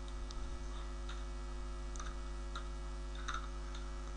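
Faint, scattered computer keyboard key clicks over a steady electrical mains hum.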